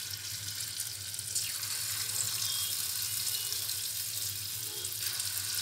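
Urad dal batter deep-frying in hot oil in a kadhai: a steady sizzle of oil bubbling around the freshly dropped pakodas.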